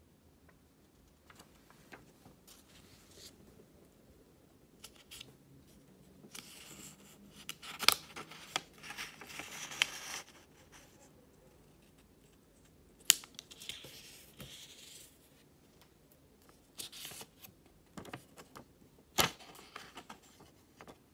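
Sheets of origami paper being handled and folded: rustling and sliding in two longer stretches, with scattered sharp snaps and taps, three of them louder than the rest.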